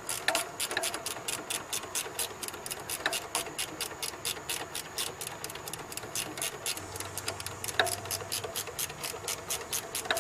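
Ratchet wrench clicking steadily, about five clicks a second, with a few louder knocks, as the alternator belt adjuster bolt is turned to tension the drive belt.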